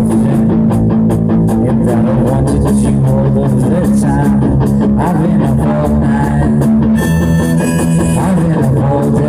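A live rock band playing loudly through a PA: electric guitar, bass and a drum kit with steady cymbal ticks, with a harmonica playing over the top.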